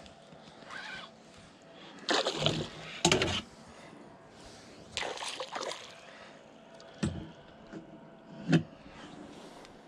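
Water splashing and sloshing beside a kayak in three short bursts, followed by two short sharp knocks.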